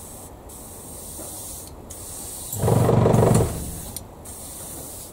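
An airbrush giving one short burst of spray, about a second long, a little past halfway, over a steady faint hiss. It is a test spray to check that the thinned flat yellow acrylic flows.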